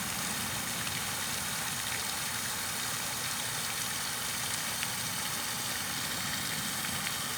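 Steady white noise for sleep: an even hiss with a low hum underneath and a few faint ticks.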